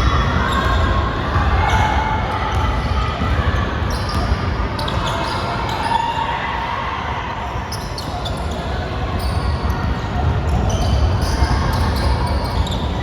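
Basketball game sounds in a large hall: a ball bouncing on the court, sneakers squeaking, and players' voices mixed together.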